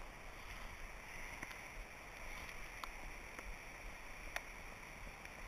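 Faint, steady outdoor hiss with a few light, sharp clicks scattered through it, the sharpest about two-thirds of the way in.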